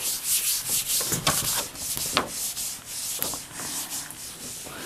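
Whiteboard eraser being wiped across a whiteboard in a series of quick rubbing strokes.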